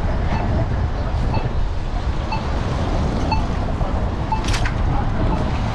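Steady low rumble of city street traffic and wind on the microphone, with a short beep repeating about once a second and a sharp click about four and a half seconds in.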